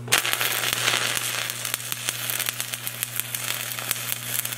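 Shielded metal arc (stick) welding with a 7018 electrode: the arc strikes right at the start, then crackles and sizzles steadily as the rod weaves along the joint on the hot pass. A steady low hum runs underneath.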